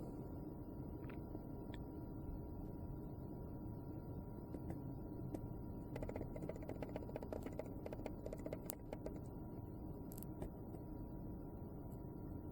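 Faint steady hum, with a quick run of small clicks and ticks for about three seconds midway.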